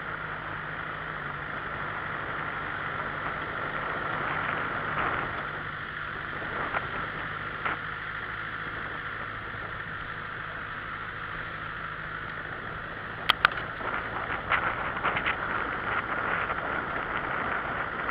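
Steady hiss and low hum as a handheld camera is carried through tall grass, with a cluster of sharp knocks and rustles about thirteen seconds in and smaller ones scattered after.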